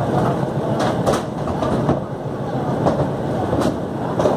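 A steady mechanical rumble and rattle, with several sharp knocks of iron bars and picks striking lumps of coal and stone.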